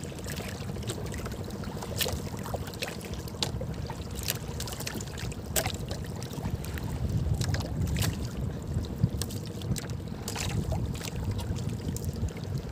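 Water lapping and sloshing against the hull of a small outrigger boat, over a low rumble, with scattered sharp clicks and taps.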